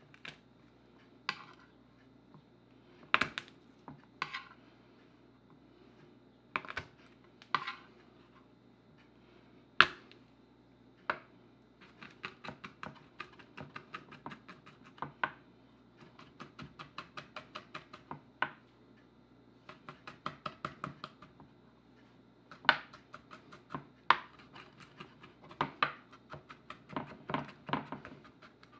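Kitchen knife chopping fresh garlic cloves on a wooden cutting board: a few separate knocks at first, then from about twelve seconds in, runs of quick even strokes, about five a second, as the garlic is chopped finely.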